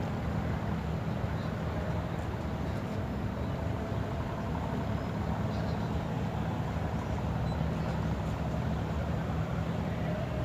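Steady low engine rumble with an even hum.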